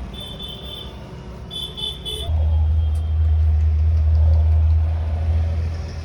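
Road traffic: a motor vehicle passes with a loud low engine rumble that swells a little over two seconds in and fades after about three and a half seconds. Before it, two short high chirping tones are heard.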